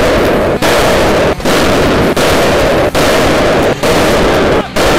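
StrikeArt RGS pyrotechnic airsoft grenades going off: about six loud blasts in quick succession, each cut off abruptly before the next.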